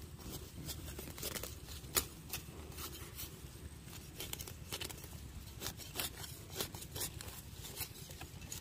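Grass and weeds being pulled by hand out of dry soil: irregular crackling and tearing of roots and stems, with soft rustling of leaves.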